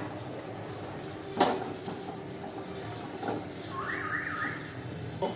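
Silicone spatula stirring and scraping wheat flour frying in ghee in a nonstick kadai, with a steady low sizzle and a sharp knock of the spatula against the pan about a second and a half in. A short run of three quick chirping squeaks sounds about four seconds in.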